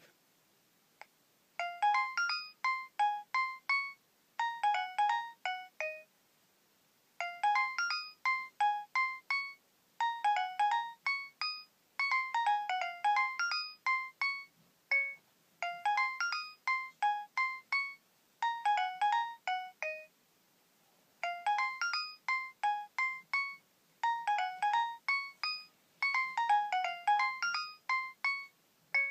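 Nokia 7250i mobile phone playing a ringtone through its speaker: a tune of short, quickly fading high notes in quick phrases with brief pauses between them. It starts about a second and a half in, after two faint clicks.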